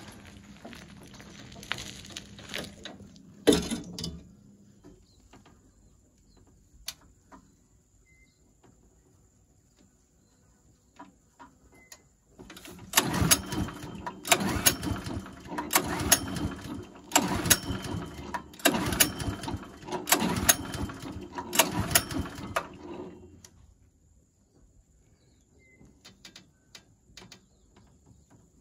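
Small Briggs & Stratton petrol engine on a garden chipper being pull-started: about seven quick pulls of the recoil cord, each spinning the engine over with a rapid chuffing without it catching.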